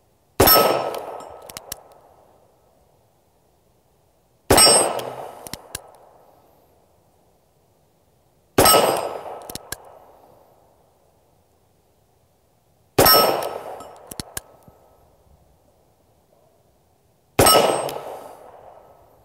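Five slow, deliberate shots from an M1895 Nagant revolver (7.62×38mmR), about four seconds apart. Each shot is followed by the ring of a struck steel plate target and a few light clanks as the plate settles.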